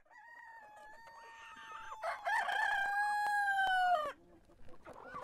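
Rooster crowing: a long drawn-out crow that grows louder about two seconds in and breaks off with a falling note about four seconds in. Another crow begins near the end.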